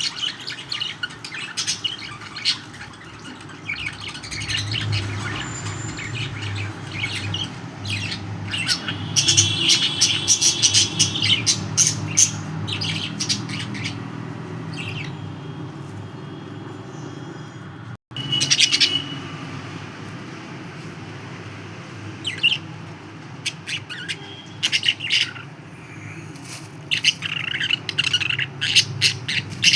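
Pet budgerigars chirping and squawking in quick, irregular bursts of chatter over a steady low hum.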